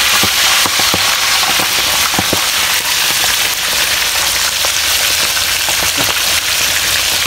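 Milkfish deep-frying in a wok of hot oil: a steady sizzle with sharp crackles scattered through it.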